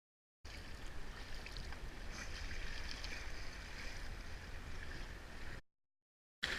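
Steady wash of water and wind noise around a small boat at sea, with a low rumble underneath. It starts about half a second in and cuts off abruptly at an edit near the end.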